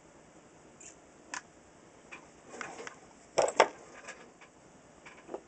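Sparse light clicks and taps from a soldering gun and solder being handled over a radio chassis, with two louder knocks close together about three and a half seconds in.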